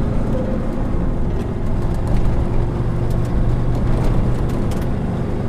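Aixam City GTO microcar's small two-cylinder diesel engine running steadily under way, heard from inside the cabin over tyre and road noise. A few light knocks come through as it rolls over cracked asphalt.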